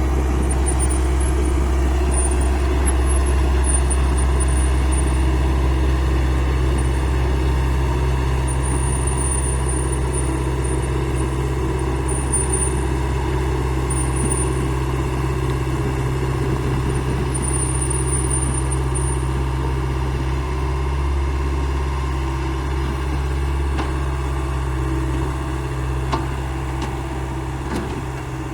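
Heavy machine's diesel engine running steadily at constant speed, with no clear revving.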